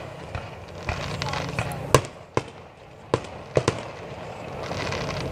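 Fireworks going off: a run of sharp bangs, about five, with crackling in between.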